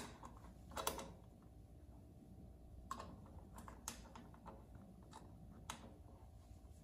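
Faint, scattered clicks and taps as the access cover is pressed and fitted onto a garage heater's wiring junction box.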